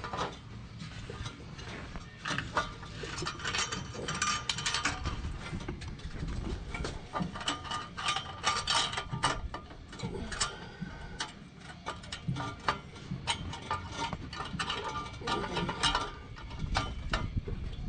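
Irregular metallic clicking and clattering of hand tools and exhaust parts being worked on during an exhaust install.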